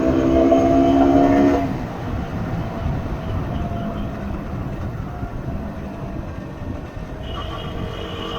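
A vehicle horn held in a steady multi-tone blast that cuts off about a second and a half in, over the constant wind and engine rumble of a moving motorcycle. Near the end a second, higher-pitched horn starts sounding.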